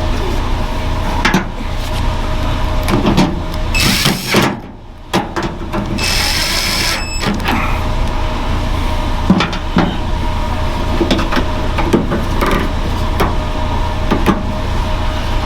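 Aerosol spray lubricant hissing in two short blasts, about four seconds in and again for about a second around six seconds, onto the truck's bent back latch, with scattered clicks and knocks of the latch being worked over a steady low hum.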